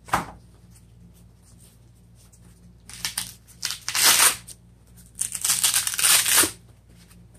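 Velcro straps on a Razor wrist guard being pulled open: a short rip at the start, a few short rips around three to four seconds in, and a longer ripping stretch from about five to six and a half seconds.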